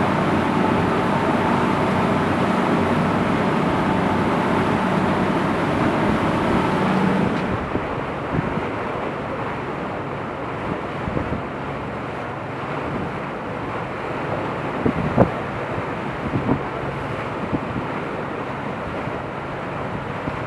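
Cruise boat's engine running with wind rushing over the microphone. About seven seconds in the hiss drops away and it turns quieter, with a few short knocks later on.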